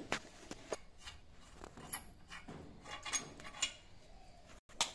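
Irregular light clicks, taps and scrapes of hands handling the rusty metal parts of a hand tubewell pump during repair.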